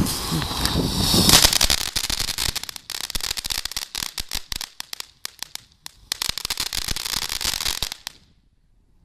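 Ground fountain firework spraying sparks with a loud hiss, then crackling with a rapid run of sharp pops for several seconds, thinning out midway and building again before cutting off abruptly near the end.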